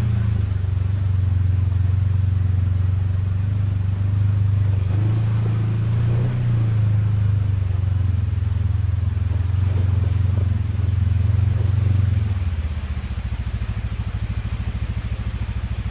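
Off-road vehicle's engine running at low speed with small changes in pitch, then dropping to a steady idle about twelve seconds in.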